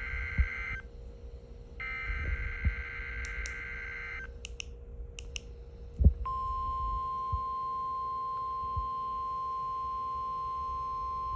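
NOAA Weather Radio receiver starting its Required Weekly Test. First come the end of one burst and then a second full burst of the buzzing digital SAME header code, followed by a few short clicks. About six seconds in, the steady single-pitch warning alarm tone begins and holds.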